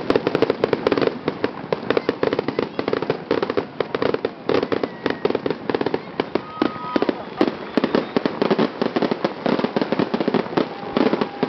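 Fireworks display: a dense, unbroken run of rapid crackling pops and bangs from bursting shells and crackling stars.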